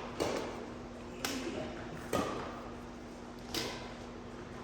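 Badminton rackets striking a shuttlecock during a rally: four sharp hits roughly a second apart, echoing in a large hall over a low steady hum.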